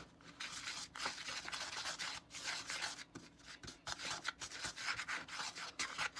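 A small spatula scraping and stirring dry, crumbly frosting mix around a plastic bowl. It makes a gritty rubbing in repeated strokes, with short breaks about once a second. The mix has only about half a teaspoon of water in it and has not yet turned smooth.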